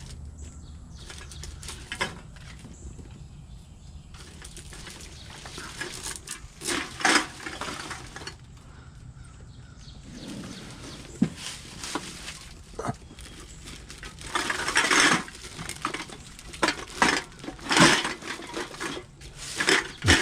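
A big bag of aluminium cans being handled and squeezed, the cans clinking and crackling against each other in irregular bursts.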